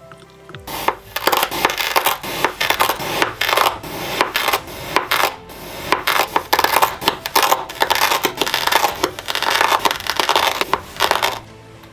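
Kinetic sand crunching and crackling as it is cut and crumbles: a dense run of gritty crackles that starts just under a second in and stops near the end.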